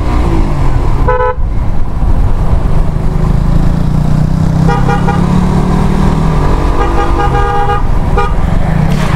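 Motorcycle engine running under way with road rumble, the engine pulling harder through the middle. Over it, a horn honks several times: briefly about a second in, then longer blasts around five and seven seconds.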